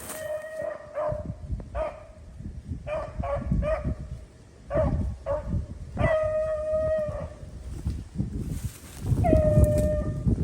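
Beagles baying on a rabbit's trail: a string of short, quick bays, then two longer drawn-out bawls, over low rustling through brush.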